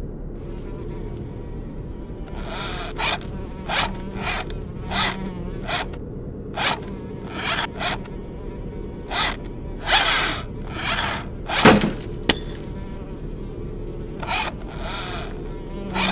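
A housefly buzzing in short passes that swell and fade one after another, over a steady low hum. The loudest pass comes about twelve seconds in and is followed by a single sharp click.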